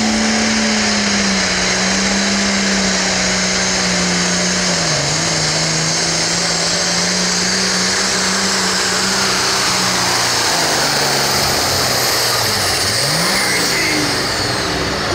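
International 1066 pulling tractor's turbocharged diesel engine running wide open under load as it pulls the sled, its note holding steady with a brief dip about five seconds in. After about ten seconds the note sags and wavers as the pull ends and the throttle comes off, and a high whine falls away near the end.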